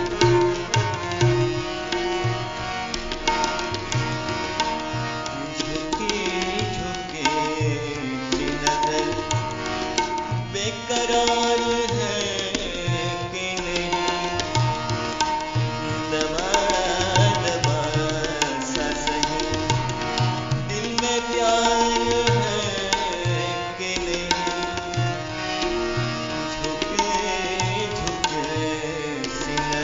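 Live ghazal music: tabla keeping a steady rhythm under a sustained melodic accompaniment, with gliding melodic phrases every few seconds.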